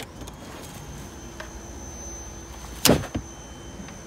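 A sharp knock about three seconds in, then a lighter one, from handling at the open car trunk, over a faint steady high-pitched whine.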